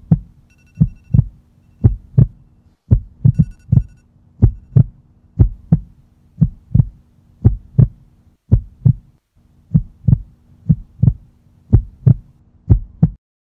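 Heartbeat sound effect: a steady lub-dub, about one double thump a second, over a low steady hum. It cuts off abruptly near the end.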